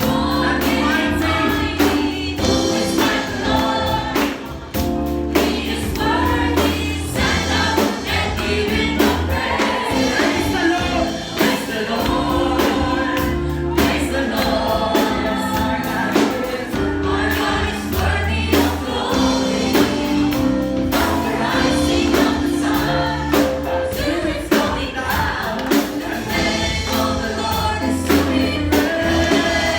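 Gospel praise music: a group of voices singing a worship song over a full band with bass and drums.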